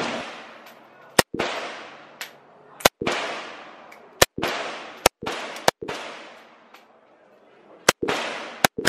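AK-47 assault rifle firing 7.62×39 mm rounds as single shots, about eight sharp cracks spaced irregularly, each with a long echoing decay.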